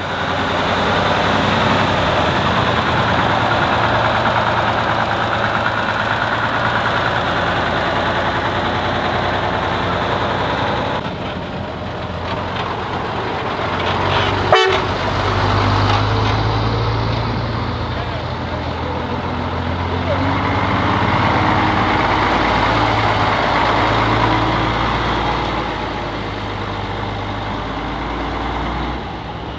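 Heavy truck's diesel engine running hard as the truck drives, swelling and easing twice, with a single sharp knock about halfway through.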